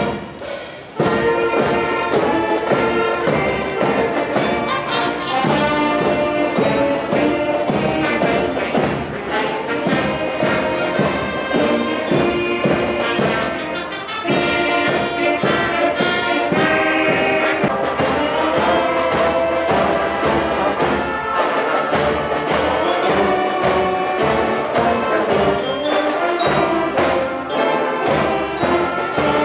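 Music led by brass instruments, trumpets and trombones, with a steady beat.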